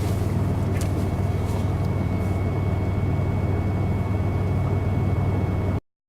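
Steady low city rumble with a thin, steady high whine over it. It cuts off abruptly near the end.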